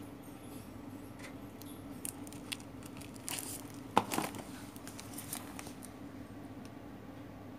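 Plastic-wrapped mailing parcels being handled and shifted: crinkling and rustling with scattered clicks between about two and six seconds in, the sharpest about four seconds in, over a steady low hum.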